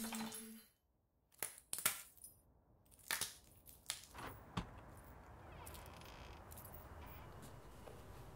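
A brief silence, then a scattering of sharp clicks and clinks of small hard objects over a few seconds, then faint steady low room noise.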